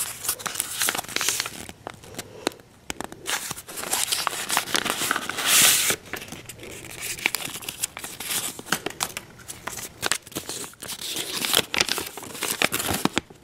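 Paper rustling and crinkling as a folded service schematic sheet is handled, pulled from its envelope and unfolded, with many small crackles. One longer, louder rustle comes about five and a half seconds in.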